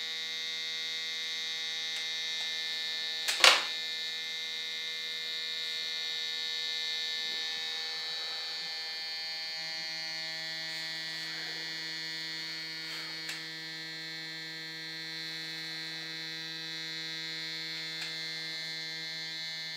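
Small electric cold-smoke generator's air pump running with a steady hum, blowing smoke through its hose into the covered dish. The tone shifts slightly partway through, and a single sharp click comes about three and a half seconds in.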